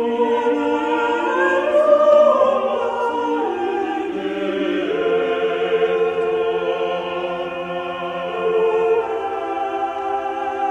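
Choral music: a choir singing slow, long-held chords in a classical or opera style.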